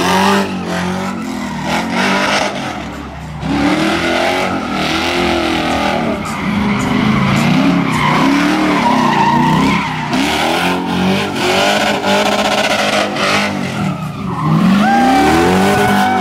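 Pontiac Firebird doing donuts in heavy tyre smoke: the engine revs up and down again and again over screeching, spinning tyres, and near the end it climbs to a high, held rev.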